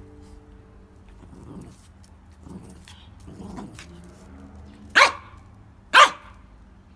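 Small Yorkshire terrier playing with a toy: a few soft low growls, then two sharp, loud barks about a second apart near the end.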